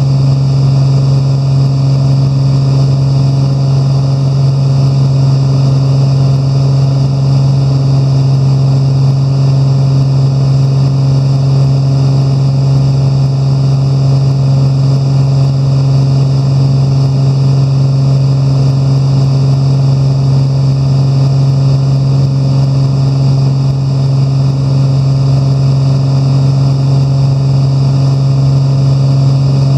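Steady cabin drone of a Velocity XL's Lycoming piston engine and pusher propeller in cruise: a loud low hum holding one pitch, unchanging throughout.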